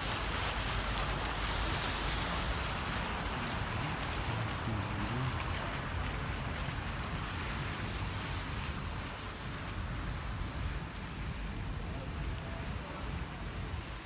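Steady rushing hiss of a fountain's water jets splashing, a little fainter after the first few seconds, with an insect chirping in an even rhythm about two or three times a second.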